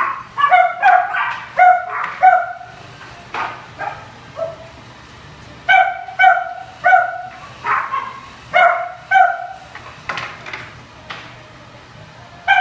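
A small dog barking: about fifteen short, sharp, high-pitched barks in loose bursts, some in quick pairs.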